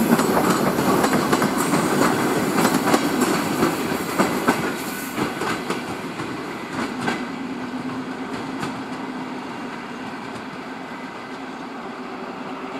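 ER9M electric multiple unit rolling away past the platform, its wheels clicking over the rail joints. The clicks come thickest in the first half, and the rolling noise fades steadily as the train draws off.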